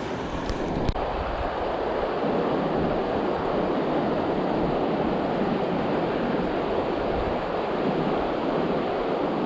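River water rushing steadily over the riffles of a tailwater, a constant even wash. There is a single small knock about a second in.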